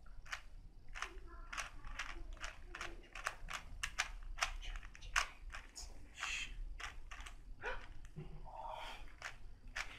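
Rubik's Cube being turned fast by hand, its plastic layers clicking in quick irregular snaps, about two to three a second.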